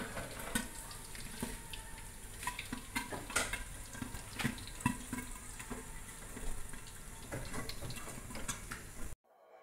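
Food frying in hot oil inside a covered steel wok, a steady sizzle with many irregular pops and crackles of spitting oil. It stops abruptly near the end.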